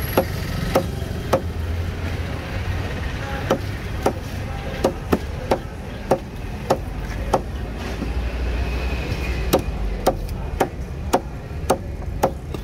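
A large knife chopping yellowfin tuna loin into chunks: the blade goes through the flesh and hits a wooden table in sharp strokes, about one to two a second, with a short pause about two seconds in. A steady low rumble runs underneath.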